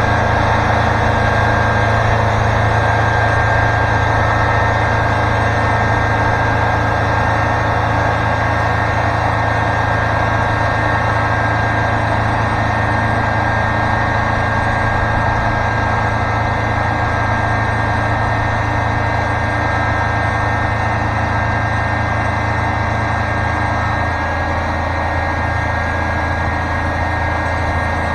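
Wood-Mizer LT40 Super Hydraulic portable sawmill running steadily, its engine giving a constant low hum, with a slight shift in the hum near the end.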